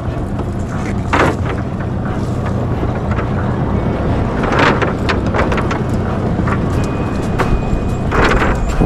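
Cast net being handled and thrown from a small boat: short swishing surges as it is swung, the last one, near the end, as the net flies out over the gunwale and hits the water. Under it, wind on the microphone and a steady low hum.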